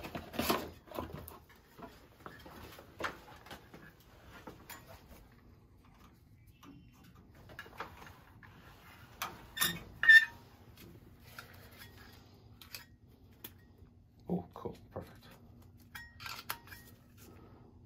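Scattered clicks and light knocks of hands working on a Honeywell zone valve and its wiring, with two sharp clicks about ten seconds in. A faint steady hum starts at about the same point.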